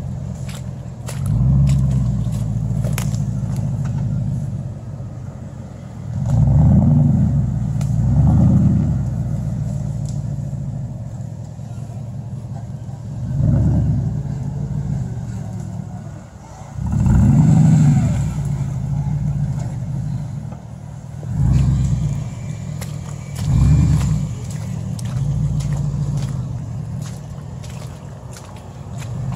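Pickup truck engine running with repeated surges of revving, about eight bursts of throttle rising and falling, as the truck works through deep mud. Scattered sharp clicks are heard in the first few seconds.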